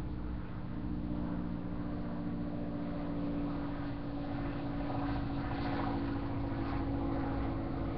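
A steady engine drone with a couple of held tones over a low rumble, growing a little louder and brighter about five seconds in.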